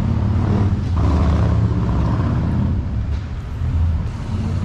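A motor vehicle's engine running close by, a low rumble that is loudest from about one to two and a half seconds in.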